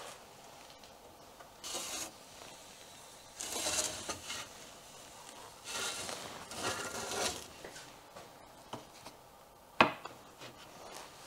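Metal scraping and rasping as the wood-fired oven's metal door is taken off and a wire grill rack is dragged out over the oven floor, in several separate scrapes. Near the end comes a single sharp knock as the rack is set down on a wooden board.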